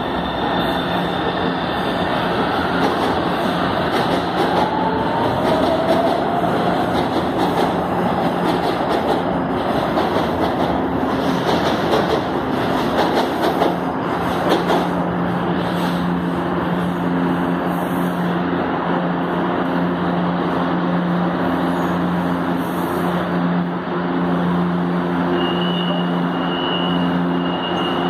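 Metro trains at a station platform: one pulls away and another rolls in and brakes to a stop, with wheel and motor rumble and a brief squeal about five seconds in. After that, the standing train gives a steady electrical hum.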